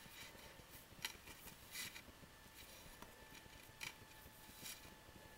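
Faint rustling of embroidery floss as strands are tugged and pulled tight while tying friendship-bracelet knots: a few short, soft swishes over near silence.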